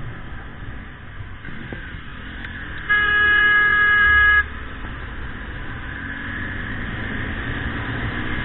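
A horn sounding one steady, single-note blast of about a second and a half, starting about three seconds in. Under it runs the steady road and engine noise of a motorcycle riding through traffic.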